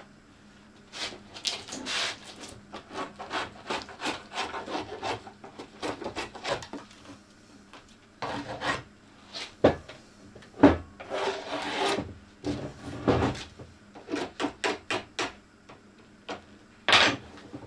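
Repeated short scraping strokes of a hand tool along the edges of a freshly demoulded fibreglass wind-turbine blade, cleaning up its rough moulded edges. A couple of sharper knocks come about ten seconds in.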